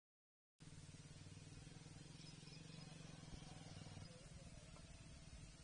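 Faint, steady hum of a motor vehicle's engine running, with a rapid even pulsing, easing off slightly about three and a half seconds in.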